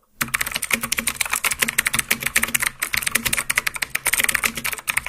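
Fast typing on a computer keyboard: a dense, continuous run of keystroke clicks that starts a moment in.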